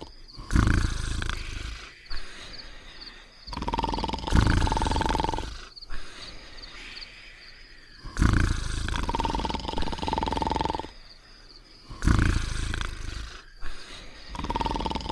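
Cartoon snoring from two sleeping dogs: short loud rumbling snores alternating with a steady whistling exhale, the cycle repeating about every four seconds.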